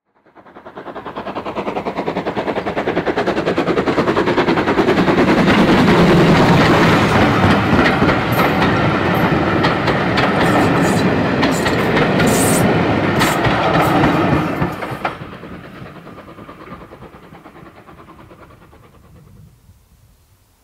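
A heritage train's coaches rolling past close by, their wheels clattering over the rail joints with sharp clicks. The sound builds to a peak, drops off suddenly about fifteen seconds in, then fades away.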